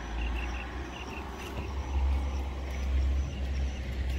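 Low wind rumble on the microphone, strongest about two and three seconds in, over the swish of water as a drag net is hauled through a shallow pond. Short high chirps repeat in quick groups of two or three in the background.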